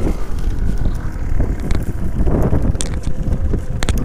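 Yamaha DT 125 two-stroke dirt bike rolling along at low revs, largely covered by wind buffeting the helmet microphone, with a few sharp clicks near the end as the bike jolts over rough ground.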